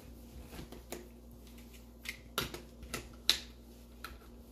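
Hand-held can opener cutting the lid off a metal can: about six sharp, irregular clicks.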